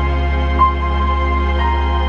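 Slow ambient live music from cello, keyboard and laptop electronics: a deep steady drone under a high note that sounds about once a second and hangs on.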